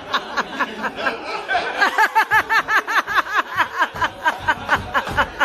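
Audience laughing: quick, rhythmic 'ha-ha-ha' laughter, about five beats a second, swelling with several overlapping laughs in the middle.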